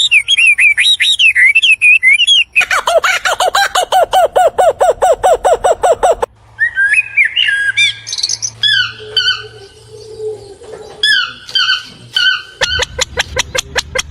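Birds calling and singing, changing abruptly between several different birds. First comes a warbling, chirping song. About two and a half seconds in, a fast run of repeated notes starts, about seven a second. After about six seconds there are scattered whistled calls, and near the end another rapid run of repeated notes.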